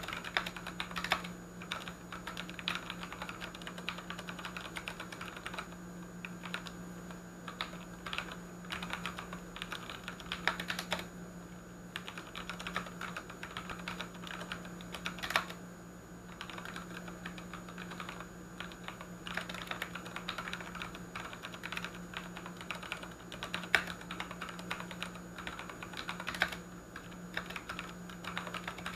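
Continuous typing on a Ducky One 2 mechanical keyboard with tactile Cherry MX Brown switches: a dense, irregular patter of keystrokes with a few louder clacks now and then. A steady low hum runs underneath.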